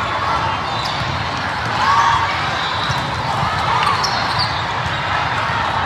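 Echoing din of a large hall full of volleyball courts: steady crowd chatter with balls bouncing and shoes squeaking on the courts.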